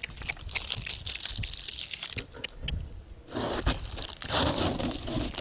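Irregular crunching and crinkling handling noise, with many scattered sharp clicks.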